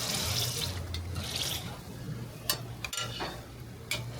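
Hotteok frying on an oiled griddle, with two bursts of hissing sizzle in the first second and a half, then a few sharp clicks of metal utensils.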